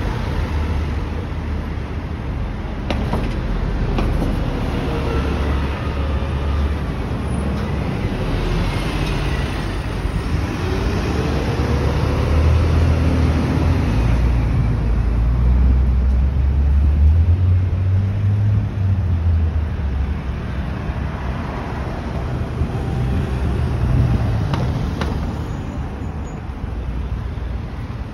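Road traffic on a city street: cars and other motor vehicles running and passing, with a heavy low rumble that swells and fades over several seconds.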